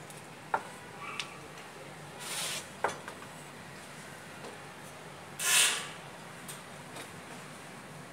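Handling sounds of a board being held up and fitted under a roof eave: a few sharp knocks and two short scraping rushes, the louder one about five and a half seconds in.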